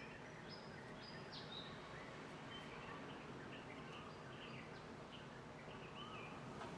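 Faint outdoor ambience of small birds chirping and whistling in short, scattered calls over a soft, steady background hiss.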